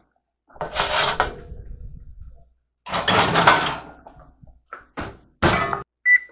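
Oven door opening and a metal sheet tray scraping out off the oven rack, followed by several short clanks as the hot tray is handled and set down.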